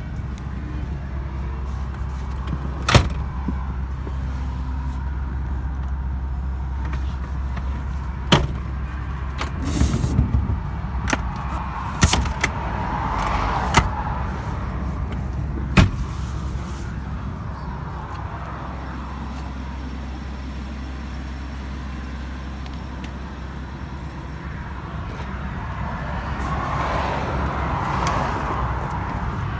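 Several sharp clicks and knocks as the seats and their fittings are handled inside a minivan, over a steady low rumble, with traffic passing twice.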